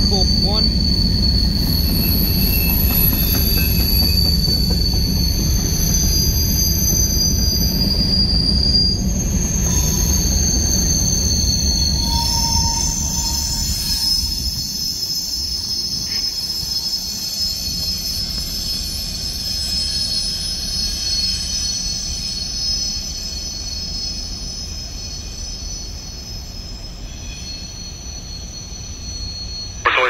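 CSX freight train's cars rolling past with a steady high-pitched wheel squeal. The low rumble of the cars fades over the second half, leaving mostly the squeal.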